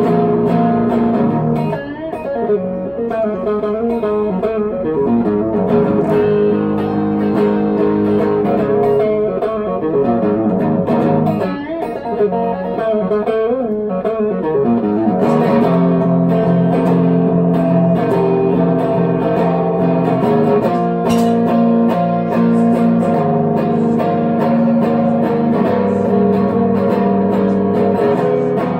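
Guitar playing an instrumental passage: single-note melody lines with wavering, bent notes over held chords.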